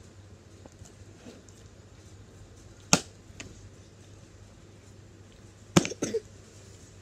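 Fork knocking against a plastic plate as a child eats pasta: one sharp clack about three seconds in, then a quick cluster of knocks near the end.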